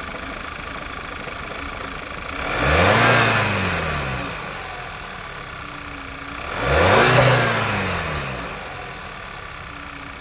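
2011 Volkswagen Eos 2.0 TSI four-cylinder engine idling and revved twice, each rev climbing and falling back to idle over about two seconds. The misfire fault is not cured, which the owner puts down to a vacuum leak he guesses is at the timing cover gasket.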